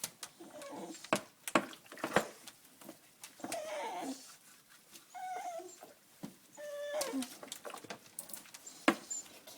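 Dog whining in the bath: several short, wavering whimpers, with sharp clicks and knocks in between.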